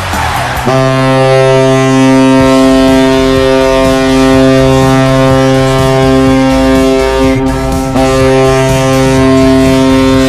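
NHL arena goal horn, a low-pitched ship-style air horn, sounding one long blast that starts sharply about a second in. It breaks off briefly near the end and then sounds again.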